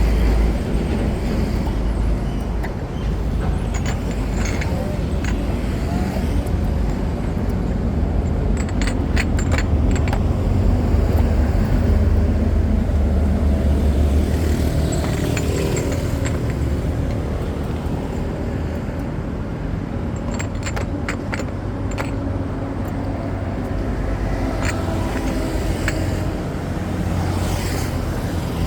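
Steady low rumble of street traffic, with small clusters of short sharp clicks about nine seconds in and again around twenty-one seconds.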